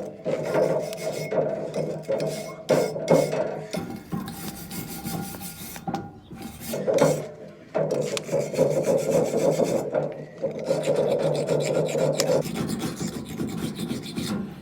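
Wire brush scrubbing a cast iron pan, scraping off the old crust in long spells of rapid back-and-forth strokes with brief pauses between them.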